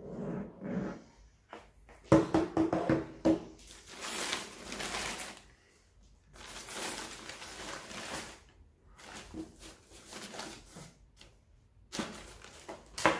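Tissue paper rustling and crinkling in several separate bursts as it is pulled back inside a cardboard box, mixed with the scrape and knock of the cardboard lid being lifted off.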